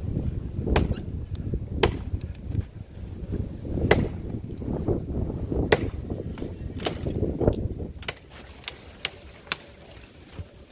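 Axe blows into dead pine wood: a 19-inch Council Tool Woodcraft Pack Axe chopping, about ten sharp, single strikes a second or two apart, coming closer together near the end.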